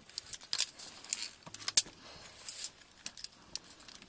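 Via ferrata carabiners clinking and clicking against the steel safety cable in a string of sharp metallic ticks, the loudest a little under two seconds in.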